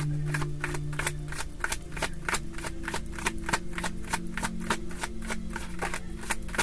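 Tarot deck being shuffled in the hands: a quick, even run of card slaps and clicks, about five a second.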